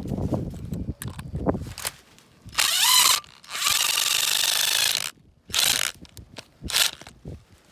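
Electric drill screwing a spiral drill-pin ground peg into the soil. The motor starts with a rising whine and runs steadily for about a second and a half. It then gives two short bursts near the end.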